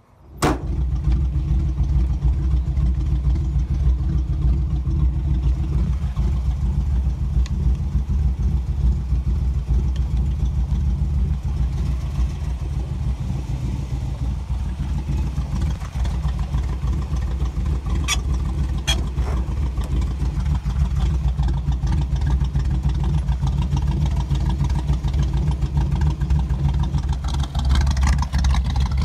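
1967 Chevrolet Camaro RS engine idling with a steady low rumble, cutting in abruptly at the start and growing louder and brighter near the end. Two short clicks come about two-thirds of the way through.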